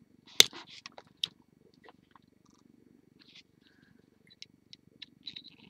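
Jewelry pliers clicking on stiff wire as the wire is twisted round: a sharp click about half a second in, another just over a second in, then lighter ticks, over a steady low rumble.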